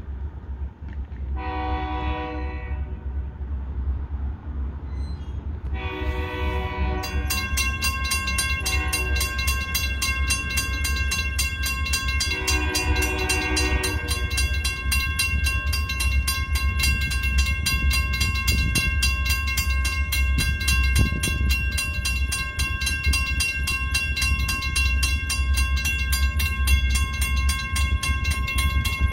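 Great Lakes Central locomotive air horn sounding the grade-crossing signal, several notes at once: long, long, short, long. From about seven seconds in, the crossing's warning bell rings steadily, with a low rumble underneath throughout.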